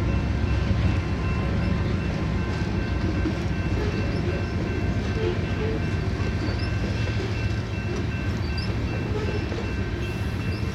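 Freight cars of a passing manifest train, mostly covered hoppers, rolling along the rails: a steady rumble of wheels on track, easing slightly near the end.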